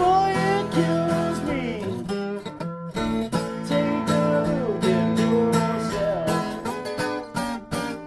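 Live acoustic blues: a steel-string acoustic guitar strummed in a steady rhythm, with a man singing long, bending notes over it. The playing breaks off for a moment a little under three seconds in, then carries on.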